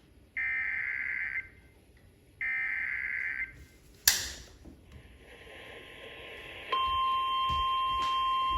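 Emergency Alert System SAME header data bursts, a harsh electronic warble, sounding twice about two seconds apart. A click follows about four seconds in, then low hiss. Near seven seconds in, a steady single-pitch NOAA Weather Radio warning alarm tone starts and holds.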